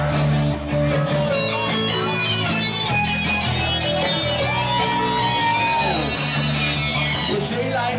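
Live rock band playing an instrumental passage with strummed electric guitars over a steady bass line, and no singing.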